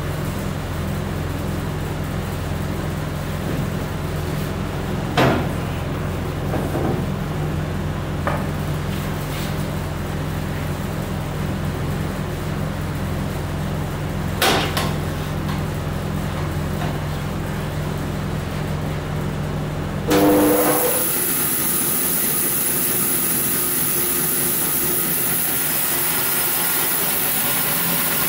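Band saw running with a steady low hum and a few sharp knocks; about twenty seconds in the sound changes suddenly to a louder, steady hiss.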